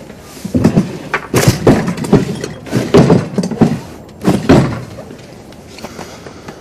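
Someone rummaging through wooden cupboards and drawers: doors and drawers knocking and banging, with things inside shoved about, in a quick irregular run of loud knocks and thuds that stops about five seconds in.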